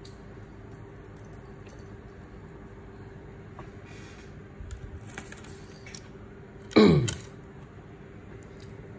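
Quiet room tone with a steady faint hum and a few faint clicks, then about seven seconds in a person clears their throat once, a short rasp that falls in pitch.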